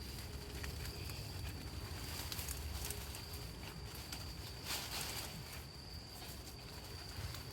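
A steady, high-pitched insect call, with footsteps and rustling of someone pushing through tall grass; a brief louder rustle about five seconds in.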